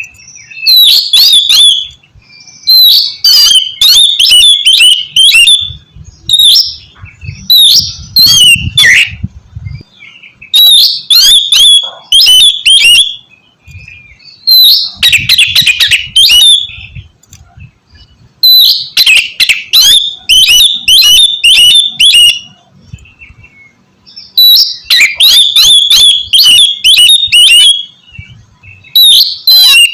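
Oriental magpie-robin (kacer) singing loudly in rapid, varied phrases of sharp whistles and harsh notes, each burst lasting a second or two with short pauses between, about eight bursts in all.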